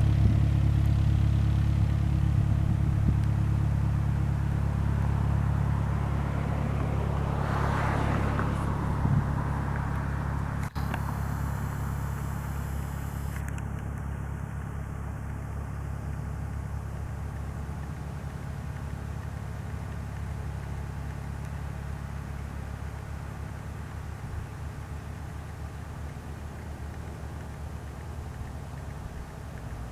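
Cessna 172 Skyhawk's four-cylinder piston engine and propeller running at low power, a steady low drone that slowly grows fainter.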